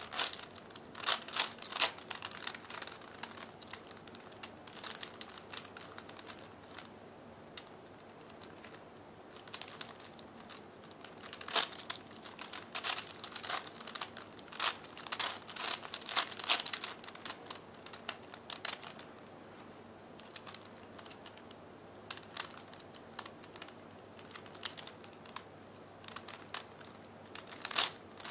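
V-Cube 5x5x5 puzzle's plastic layers clicking and clacking as they are turned by hand in quick runs of moves, broken by quieter pauses between runs.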